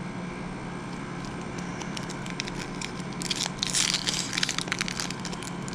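Foil wrapper of a 2012 Topps football card pack crinkling and tearing as it is opened by hand, starting about two seconds in and densest a second later, over a steady low hum.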